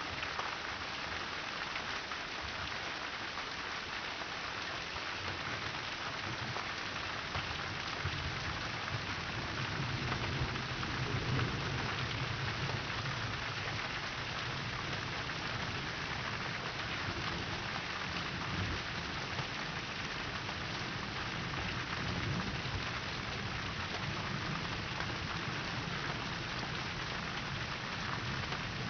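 Steady rain falling, with a low rumble of thunder that swells about ten seconds in and dies away a few seconds later.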